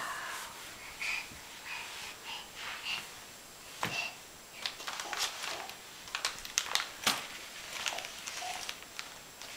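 Scattered light taps, clicks and rustles from a baby crawling on a rug and handling a fabric lunch bag, with a few small breathy sounds from the baby.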